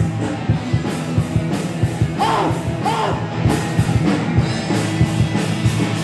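Live punk rock band playing loud: distorted electric guitars and bass over a drum kit beat with cymbals.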